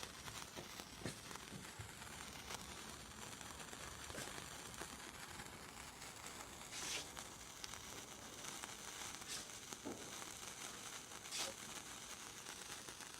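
Lit sparkler fizzing faintly, with scattered small crackles and a few brief louder hisses.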